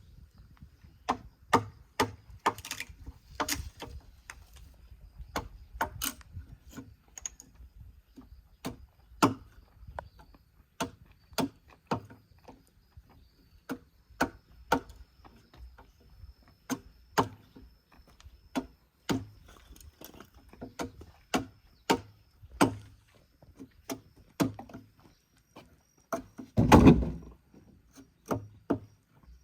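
A carpenter striking timber with hand tools, working joints for a mortise-and-tenon frame: a long run of sharp wooden knocks, roughly one or two a second at an uneven pace, with one louder, longer thump near the end.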